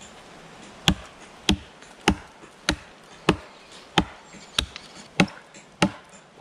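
Crow chopping knife biting into a dry, hard fallen pine log: about nine sharp chops in a steady rhythm, one every 0.6 seconds or so, starting about a second in.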